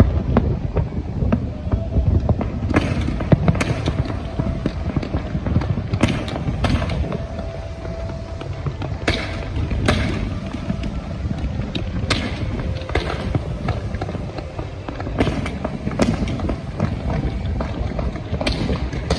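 Fireworks display going off in a dense barrage: a continuous low rumble of launches and bursts, with sharp bangs and crackles every second or two.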